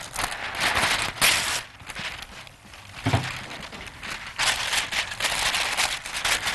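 A sheet of baking parchment rustling and crinkling as it is spread over a baking tray. It comes in two spells of handling with a quieter gap between.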